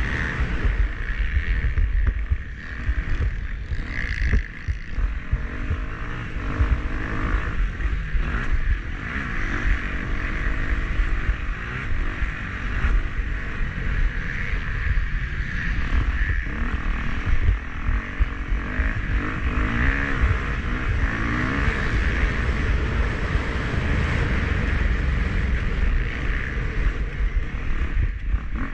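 Motocross dirt bike engine at race pace, revs rising and falling again and again as the rider works the throttle and gears, with heavy wind rumble on the onboard action camera's microphone.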